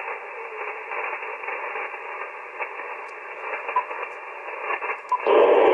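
Band noise hissing from an Icom IC-7300 HF transceiver's speaker on 40-metre sideband between transmissions, no station talking. About five seconds in the static turns suddenly louder and wider in range.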